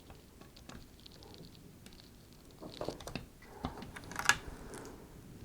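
Small clicks and taps of an AMD Wraith stock CPU cooler being set down and seated on the motherboard's mounting bracket, with a few louder knocks around the middle and one sharp click about four seconds in.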